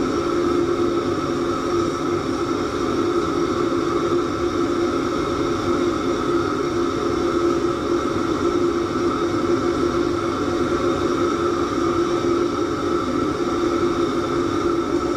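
Steady roar and hum of a commercial kitchen stove running under a large wok of beef offal heating in bone broth, with no break or change.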